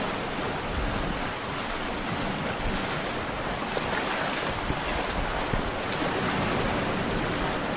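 Sea-waves sound effect played over the theatre's speakers: a steady wash of surf.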